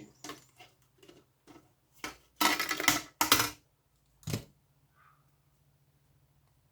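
Metal hand tool clicking and scraping against a power-supply circuit board as components are pried off it: scattered sharp clicks, a louder clattering scrape about two and a half seconds in, and a last click about four seconds in. A faint steady low hum runs underneath.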